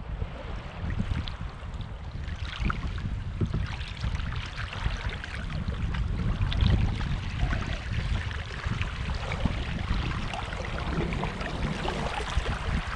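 Water rushing and splashing along a sailing canoe's hull as it runs through choppy water, with wind buffeting the microphone in a steady low rumble.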